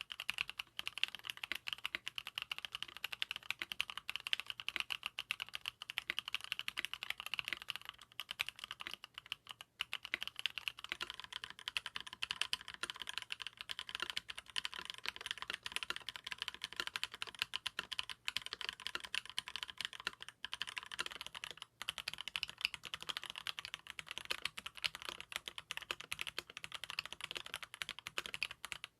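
Fast, continuous typing on a custom mechanical keyboard (mStone Groove T, aluminium plate, silicone dampening) fitted with lubed linear switches, a dense run of keystrokes with brief pauses about ten and twenty seconds in.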